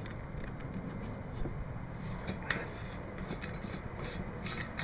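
Steady low background rumble with a few faint, scattered clicks and taps from handling a plastic fuel tank.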